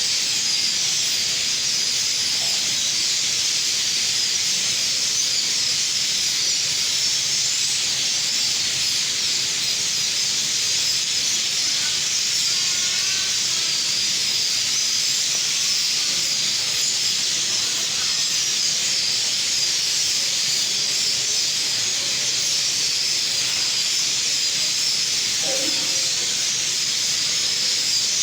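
A dense chorus of many small birds chirping at once, so many that the calls merge into a steady high-pitched hiss, with a few lower single chirps standing out now and then.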